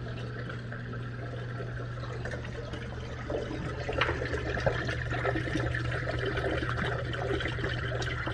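Samsung dishwasher drain pump running with a steady hum while water splashes and gurgles out through the drain line and air gap; the water noise gets louder about three seconds in. It is the remaining water being pumped out now that the drain is no longer obstructed.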